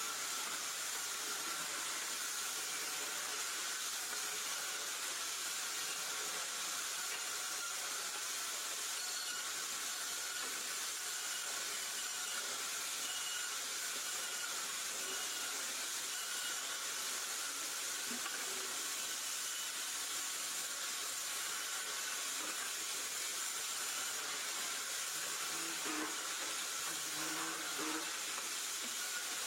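A steady, even hiss with no strong beats or impacts, and a few faint short tones near the end.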